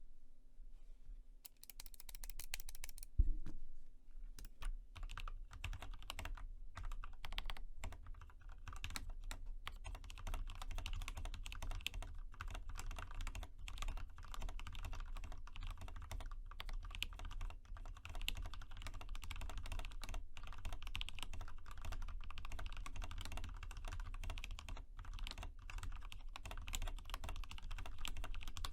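Continuous fast typing on an Epomaker EP84 mechanical keyboard with lubed and filmed Gateron Black linear switches: a dense, even stream of key strikes. A single louder knock sounds a little after three seconds in, as the typing picks up.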